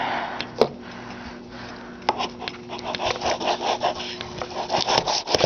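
A blade sawing and scraping at the tape of a cardboard shipping box to cut it open. There is one click early, then from about two seconds in a quick run of rasping strokes.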